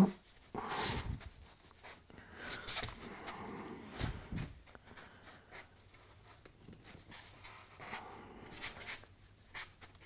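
Faint scuffing and rustling of hands pressing a piece of Celotex insulation board down into glue on a plywood base to bed it in, with a soft knock about four seconds in.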